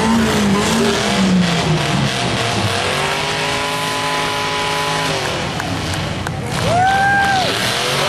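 Demolition derby cars' engines revving hard, rising and falling in pitch and held high for a couple of seconds in the middle, over a din of tires spinning in mud. A couple of sharp knocks come about six seconds in.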